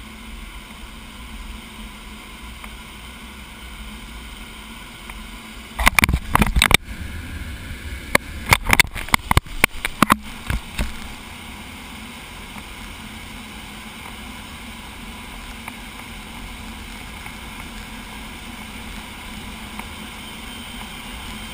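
Steady rush of air over a glider's canopy in flight, with a cluster of loud sharp clicks and knocks from about six to eleven seconds in.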